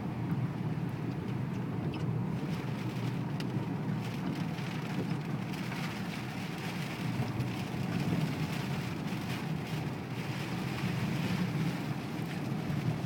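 Steady rumble of road and wind noise inside a moving car's cabin.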